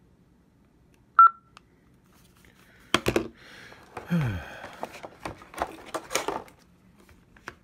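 A single sharp electronic beep from an Onn walkie-talkie as a button is pressed, about a second in; it is the loudest sound. From about three seconds in come clicks and knocks of the plastic radios being handled and set down on a wooden table, with a short rush of noise near the middle.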